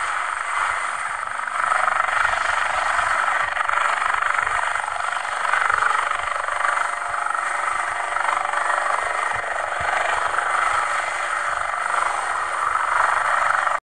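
Kawasaki OH-1 scout helicopter hovering: a steady rushing noise of its turbine engines and rotors, heard with little low end and no distinct blade beat.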